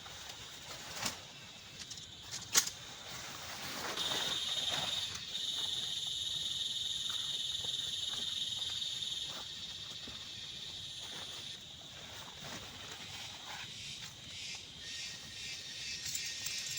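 A steady high-pitched insect trill, loudest for several seconds in the middle and then fading, with a couple of sharp clicks before it starts.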